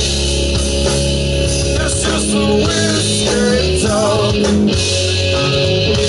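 Rock band playing live in an instrumental passage: electric guitars over bass and drum kit, with a lead line wavering in pitch above the band.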